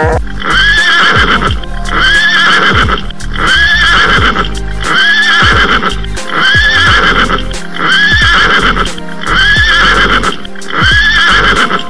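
Horse neighing over and over in an even, looped rhythm, about once every second and a third, with music.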